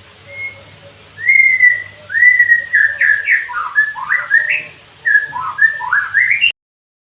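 White-rumped shama (murai batu) singing clear whistled phrases: a short note, then from about a second in a quick run of rising and falling slurs. The song cuts off abruptly near the end.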